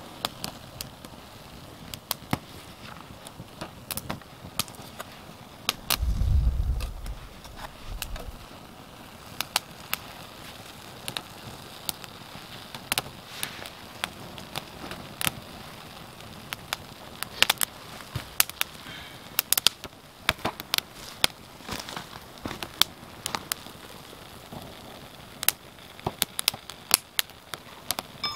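Small wood fire of feather sticks and split kindling crackling, with sharp irregular pops that come more often in the second half. A brief low rumble about six seconds in.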